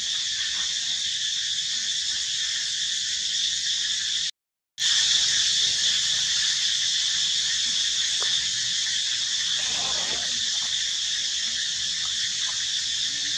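Steady, high-pitched drone of an insect chorus in the forest, broken once by a brief silent gap about four seconds in.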